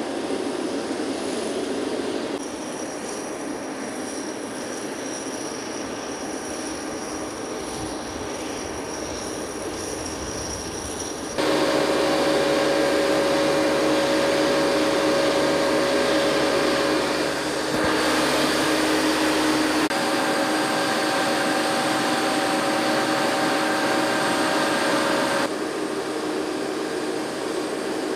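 Steady jet aircraft noise: a constant rushing hum carrying several steady whining tones. It changes abruptly in level and tone a few times, stepping up sharply about eleven seconds in and dropping back about three seconds before the end.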